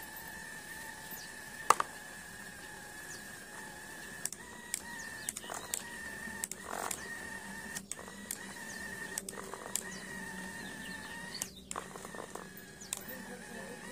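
Small electric motor and gearbox of a toy RC tractor whining steadily while it pulls its trailer through sand, with scattered clicks and knocks and one sharp click about two seconds in.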